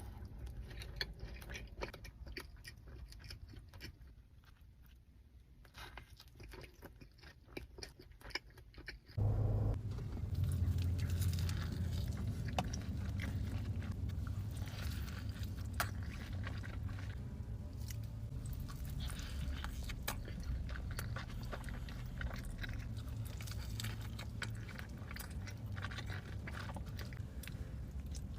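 Close-up mukbang eating sounds: a person biting and chewing burger and fries, with crunches and wet mouth clicks. About nine seconds in, the sound jumps louder and a low hum runs beneath the chewing.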